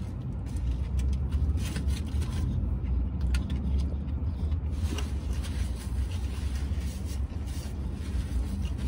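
A man chewing a mouthful of taco, with short wet mouth clicks and crackles, over a steady low rumble inside a parked vehicle's cabin.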